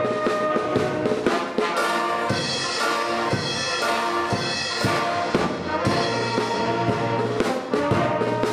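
Youth brass band of trumpets, trombones and saxophones playing a lively tune with drums, the audience clapping along.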